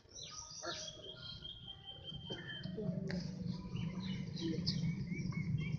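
Small birds chirping and tweeting repeatedly in short, high notes, with a low rumble that grows louder about halfway in.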